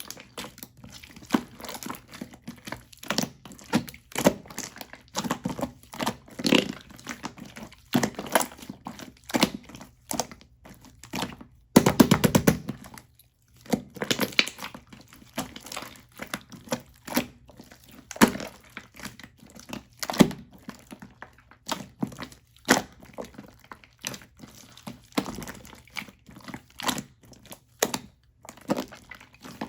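Crisp crackling and crunching from a croffle being bitten and chewed close to the microphone. There are irregular sharp crunches throughout, and a longer, louder run of crunching about twelve seconds in.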